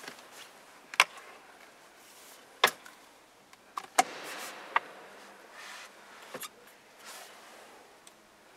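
A folding tray table being pulled out of a car's rear centre console and opened out: several sharp clicks and knocks of its hinged metal-framed leaves, with a short sliding rub in the middle.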